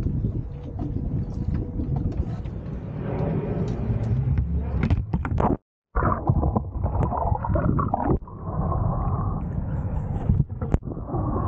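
Wind on the microphone over a small boat on the water, then after an abrupt cut, muffled gurgling and sloshing of a camera dunked in seawater.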